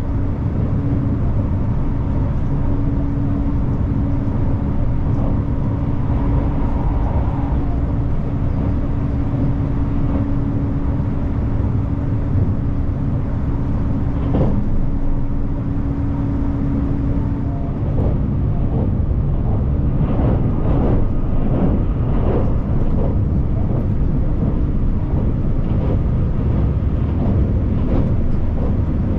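Inside a moving passenger train: a steady running rumble with a constant hum. The hum stops about 18 seconds in, and a run of short knocks and rattles follows.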